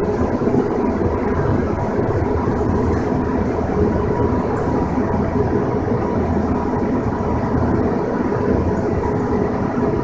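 Steady running noise inside a BART Oakland Airport Connector car, a cable-hauled people mover, as it travels along the elevated guideway. A faint steady hum runs through it.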